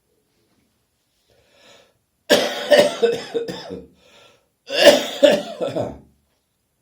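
A person with a summer cold coughing in two harsh bouts, each a rapid run of several coughs, about a second apart.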